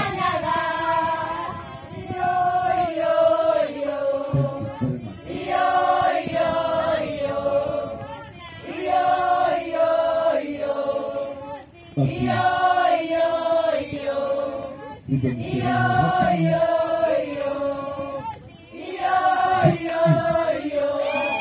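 A group of women singing a traditional chant-like song together in unison, repeating the same short phrase over and over with brief breaks between the lines.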